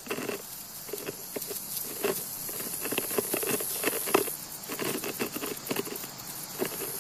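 Soft, irregular scratching and pattering of tiny legs and a dragged load on stone and grit, the close-up sound given to ants hauling food into their nest, over a faint steady hiss.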